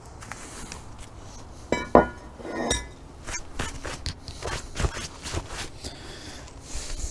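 A cast-iron brake rotor, just pulled off the hub, clanks with a short metallic ring about two seconds in and again just after, followed by a series of lighter knocks and scrapes as it is handled and set down.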